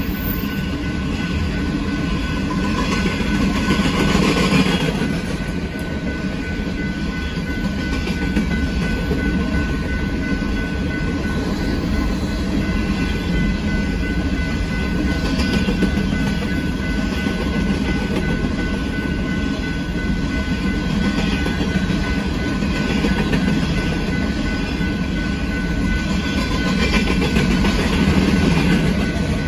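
Empty coal cars of a freight train rolling past with a steady clatter of wheels over the rail joints. A faint steady high tone runs underneath.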